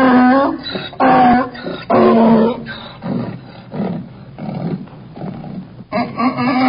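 Donkey braying: three loud, pitched calls in the first two and a half seconds, then a run of fainter rhythmic breathy pulses, and another loud bray starting near the end.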